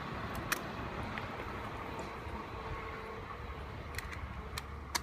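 Low rumble of a JR 115-series electric train slowly fading as it moves away, with a few sharp clicks about half a second in and again near the end.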